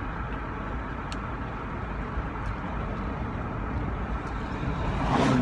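Steady road and engine noise inside a moving car's cabin, with a few faint ticks. Just before the end comes a brief vocal sound from the driver.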